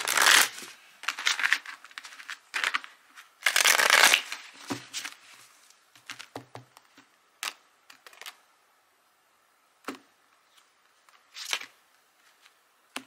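A tarot deck being shuffled in several short rustling bursts, the loudest about four seconds in, followed by a handful of separate soft snaps and taps as single cards are drawn and laid down.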